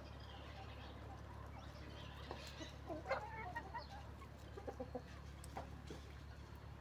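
Chickens clucking in short scattered calls, over a steady low hum.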